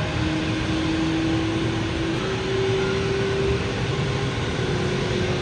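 Steady rushing drone of airport noise heard from inside the terminal behind glass, with a faint held tone underneath that steps up slightly in pitch about two seconds in.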